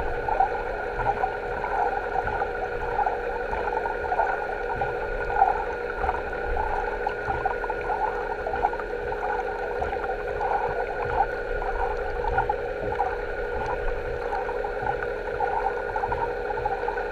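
Underwater ambience in a fish-farm sea pen, picked up by a camera under water: a steady hum made of several held tones over a fluttering, gurgling texture, with irregular low thumps.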